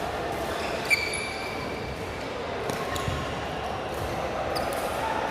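Badminton play in an indoor hall, over a steady background of hall noise. One sharp hit comes about a second in, followed by a brief high ring, and a few lighter knocks follow later.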